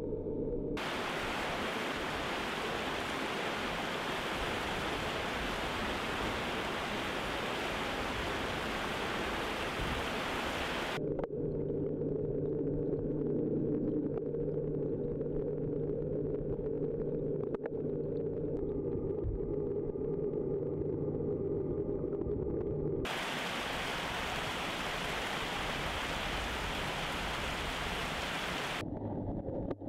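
Rushing water of a river rapid or waterfall: a loud, steady hiss. About a third of the way in it cuts to a muffled, low sound with a steady hum, as heard underwater, and the rushing water returns about three-quarters of the way through.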